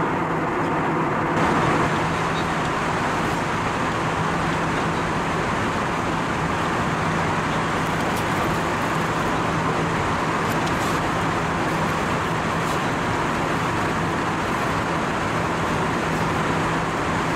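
Steady cabin noise of an Airbus A320 airliner in flight: an even rush of airflow and engine noise with a low, constant hum underneath.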